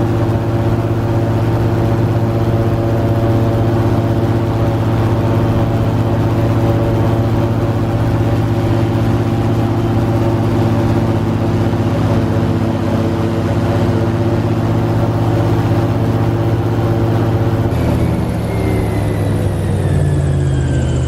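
Airboat's engine and propeller running steadily at speed, then throttled back about 18 seconds in, its pitch falling steadily as the boat slows.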